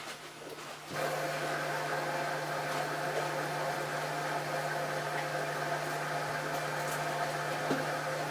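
Hoover H-Wash 500 washing machine running, its motor and drum giving a steady hum with a low tone and several higher tones; the hum starts suddenly about a second in.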